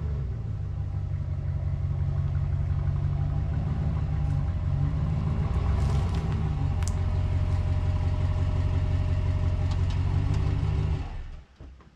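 Motor vehicle engine running with a steady low rumble, with faint clatter over it. It stops abruptly about a second before the end.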